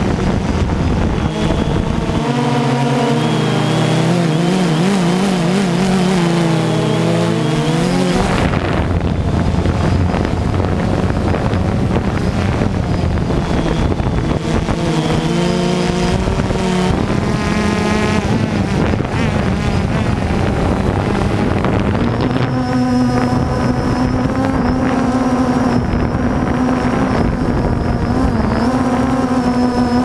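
DJI Phantom 2 quadcopter's electric motors and propellers buzzing, heard from the drone's own camera. The pitch wavers and shifts up and down several times as the motors change speed, with wind rushing over the microphone.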